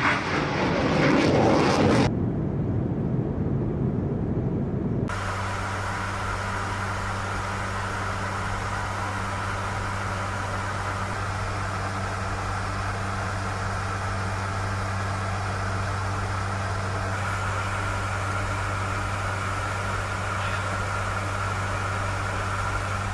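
F-16 fighter jet's engine roaring as it climbs out after take-off, cut to a muffled rumble about two seconds in. From about five seconds in, a steady aircraft engine drone with a constant low hum, as heard inside an aircraft in flight.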